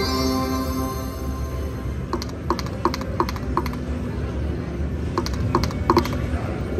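Video slot machine playing a short chiming jingle that fades out in the first second or two, then two spins, each ending in a quick run of clicks as the reels stop one by one, over a steady low background hum.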